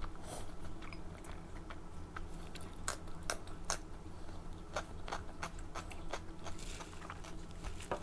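Chewing and biting, with scattered short crisp clicks and crunches.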